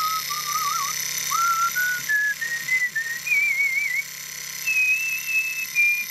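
A person whistling a tune: one clear note moving in short phrases with little wavering trills, climbing step by step in pitch and easing back down slightly near the end.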